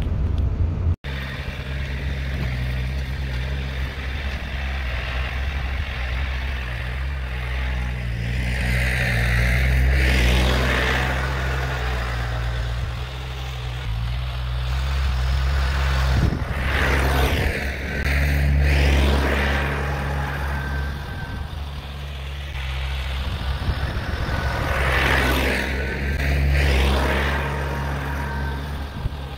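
Tractor engine running steadily, its revs rising and falling a few times as it works a front loader moving round hay bales.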